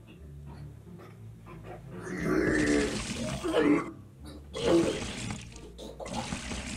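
A man retching and vomiting in three bouts, the first the longest, each a strained voiced heave with a wet splatter.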